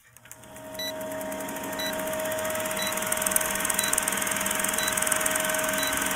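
Film-countdown sound effect: a film projector clattering and whirring with a steady hum, and a short high beep once a second as the leader counts down. The whole sound slowly grows louder.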